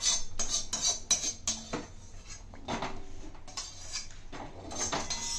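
Metal spoon clinking and scraping against a steel kadhai and a steel plate in a string of quick knocks and scrapes, as a cooked vegetable mash is scooped out and spread flat.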